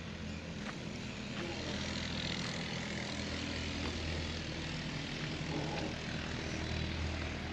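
A steady motor drone with a low hum, and a few faint clicks in the first couple of seconds.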